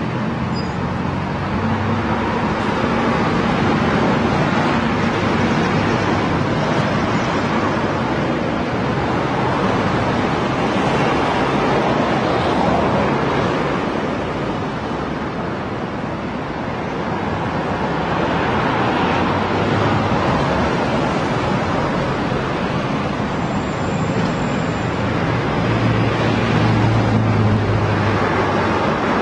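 Continuous road traffic: a steady wash of tyre and engine noise from passing cars, swelling and fading as vehicles go by, with a louder low engine hum from a passing vehicle near the end.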